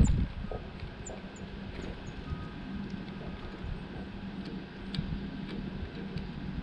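Steady low mechanical hum over a low rumble, with a thump at the very start. A few short, faint, high bird chirps come about a second in, and scattered light ticks follow later.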